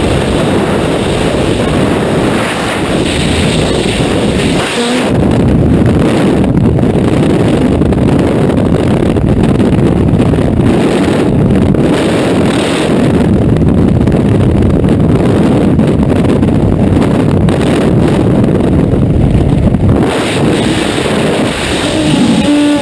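Loud, steady rush of freefall wind buffeting a skydiver's helmet-mounted camera microphone. The roar turns deeper and duller about five seconds in and brightens again near the end.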